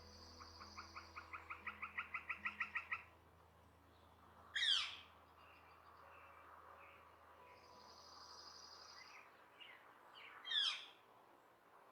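Several birds calling: a rapid run of about seven notes a second that grows louder for the first three seconds, two high held whistles, and two loud, quick descending calls, one near the middle and one near the end.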